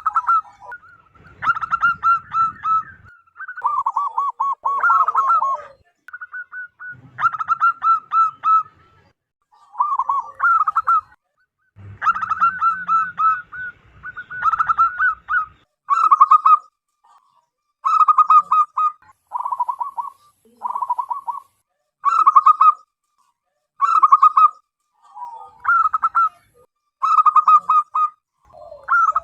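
Zebra doves (perkutut) singing loudly: fast staccato cooing phrases, each a second or two long, repeated about every two seconds and at times overlapping.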